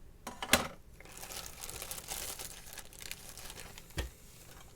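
Plastic packaging of model kit parts crinkling as the parts are handled, with a sharp click about half a second in and a dull knock near the end.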